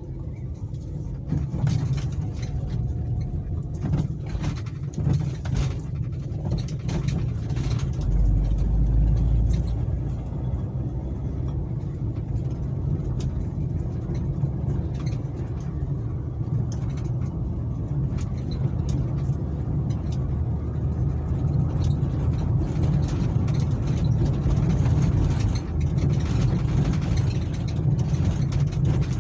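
A car's engine and road noise heard from inside the cabin while driving slowly over a rough, wet road, a steady low rumble. Short knocks are scattered through the first several seconds, and a deep thump about eight seconds in.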